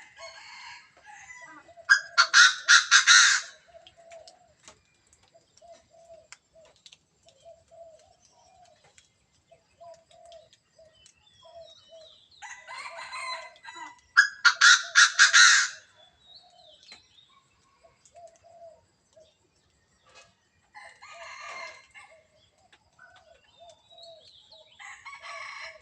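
A partridge crowing: two loud, harsh calls made of quick repeated notes, a couple of seconds in and again about halfway, with softer call phrases between them. Short, soft, low notes repeat throughout.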